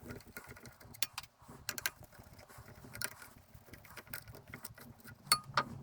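Scattered clicks and clinks of hand tools and metal drill press parts being handled during disassembly, with two louder ringing metal clinks near the end.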